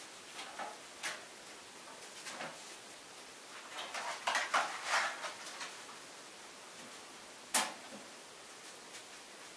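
Scattered light handling noises: the door of a front-loading clothes dryer being opened with a click, rustling and small knocks as a box is handled, then a single sharp click about two seconds before the end.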